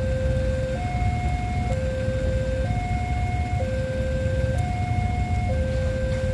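Railway level-crossing warning alarm sounding its electronic two-tone hi-lo signal, each tone held about a second, warning of an approaching train. A steady low rumble runs underneath.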